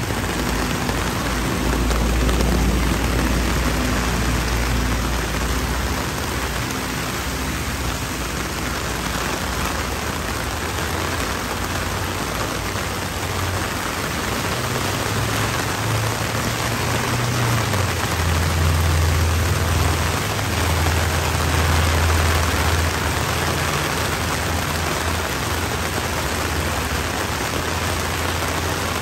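Torrential rain pouring onto pavement and a flooded road, a dense, steady hiss, with a low rumble underneath that swells in the first few seconds and again past the middle.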